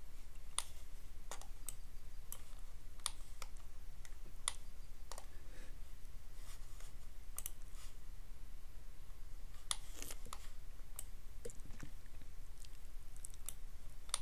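Computer mouse clicking at irregular intervals, a dozen or so sharp clicks over a faint steady low hum.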